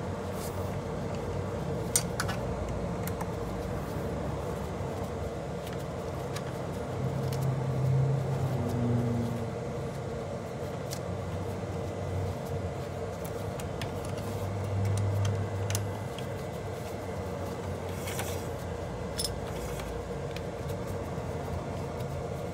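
Small metallic clicks and taps of Allen screws and an Allen key being handled while a scooter's brake caliper is bolted back on, over a steady background hum. Two short low hums, the loudest sounds, come about seven and fifteen seconds in.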